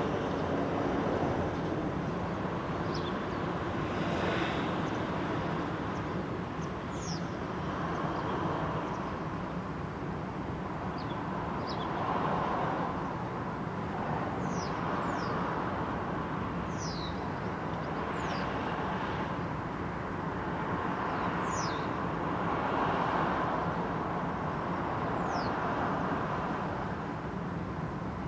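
Road traffic at an intersection: a steady hum of vehicles, swelling every few seconds as cars pass. Short high falling chirps sound several times over it.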